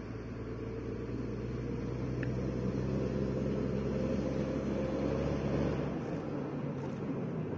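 KAMAZ rally truck's diesel engine running steadily as the truck drives toward the microphone on a dirt track, growing louder until about six seconds in, then easing off slightly.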